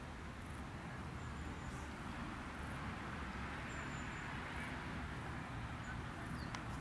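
Steady outdoor background noise with a low rumble, and a few faint, brief high chirps.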